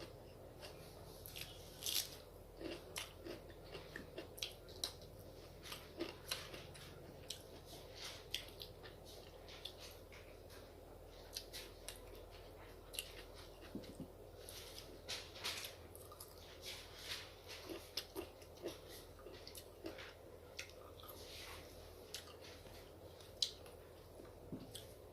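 Close-up chewing and mouth sounds of someone eating rice and curry: irregular soft wet smacks and clicks.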